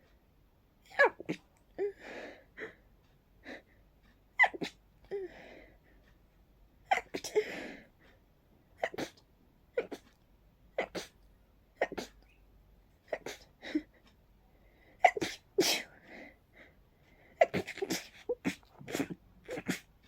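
A person's rapid sneezing fit: more than a dozen sharp sneezes in quick, uneven succession, with brief breaths in between, which the sneezer puts down to pollen.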